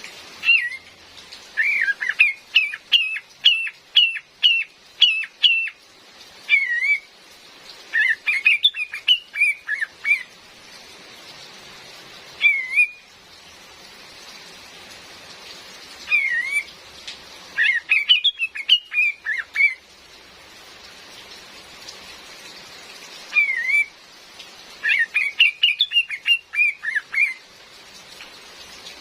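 Female kapas tembak bulbul calling in bursts of quick, rising and falling chirps, about seven phrases with pauses between them, over a steady hiss of rain.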